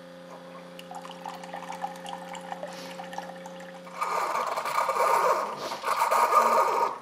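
Keurig single-serve brewer running, its pump humming steadily, with small spurts of liquid starting about a second in. From about four seconds in, a loud stream of chai latte pours into a glass mug.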